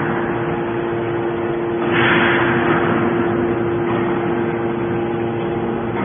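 Hydraulic scrap-metal baler running: a steady hum from its hydraulic power unit, with a hissing rush that swells about two seconds in and fades over a second or so.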